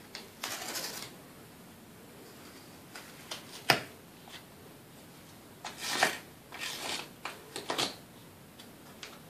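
A dog nosing and scuffing about in a narrow gap behind furniture: scattered short rustles and scrapes, with one sharp click a little over a third of the way in.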